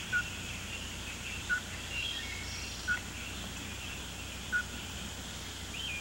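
Wetland ambience: a short, high call repeated four times, about every one and a half seconds, with a few faint higher chirps in the middle, over a steady low hum and hiss.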